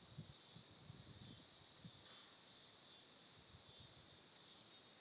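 Steady high-pitched chorus of crickets and other insects, with faint irregular low rustling beneath it.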